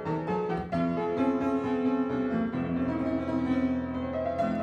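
Background music on a keyboard instrument, with held notes that change every second or so.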